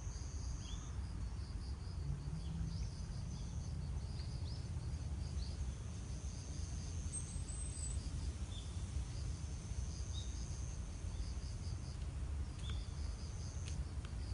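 Insects trilling high and steady in long stretches that stop and start, with a few short chirps, over a constant low rumble of outdoor background noise.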